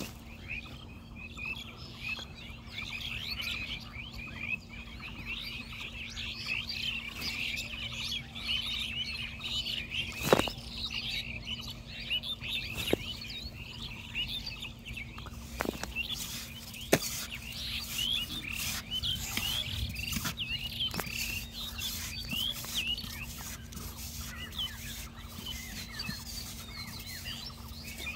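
Many small birds chirping continuously over a faint steady low hum, with a handful of sharp knocks from a hoe chopping into clay soil, the loudest about ten seconds in.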